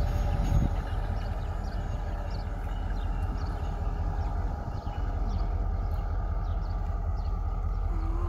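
EMD diesel-electric locomotive running as it moves slowly away down the line, a steady low rumble.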